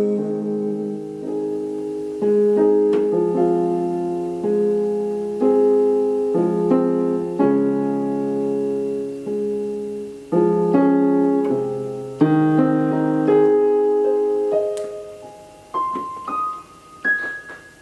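Solo piano playing slow held chords that strike and fade away, ending with a few single notes climbing higher as the playing closes out the song.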